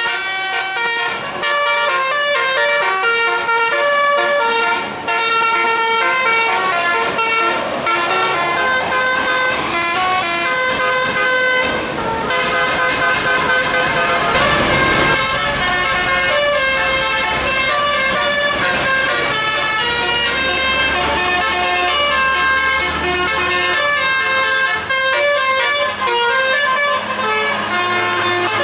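Bus's Basuri telolet musical air horn playing a tune of quick stepping notes throughout. About halfway through, a wash of engine and road noise swells up under it as a bus goes by, and a low engine hum sits under the last few seconds.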